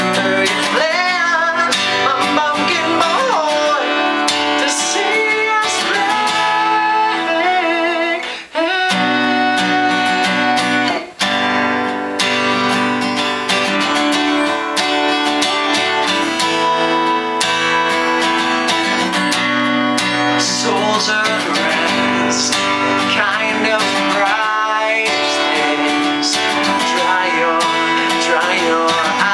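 Guitar playing an instrumental passage of a song, strummed and picked, with two brief gaps about eight and eleven seconds in.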